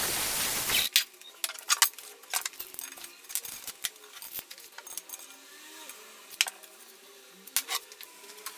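Angle grinder disc working steel, a loud steady hiss that cuts off about a second in. It is followed by irregular metallic clinks and knocks as metal parts and tube are handled on a workbench.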